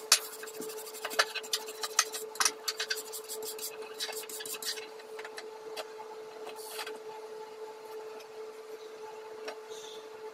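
Metal clinking and tapping on a steel welding table as a welded steel piece is handled and set down. The sharp clicks come thick for the first few seconds, then only now and then. A steady electrical hum runs underneath.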